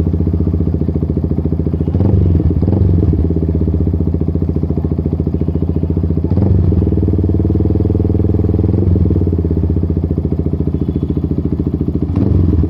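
Yamaha MT-15's 155 cc single-cylinder engine idling through an Akrapovič-branded matte black slip-on muffler, swelling briefly a few times as the throttle is blipped.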